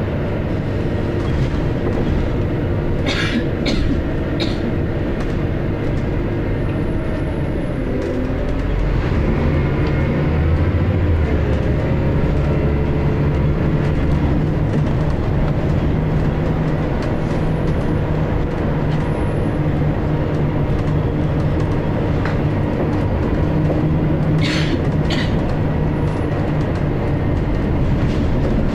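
Scania L94UB bus engine and ZF automatic gearbox driving along, heard from inside the passenger saloon as a steady drone. About eight seconds in the engine note slides, then it settles into a steadier, slightly louder tone. There are short rattles a few seconds in and again near the end.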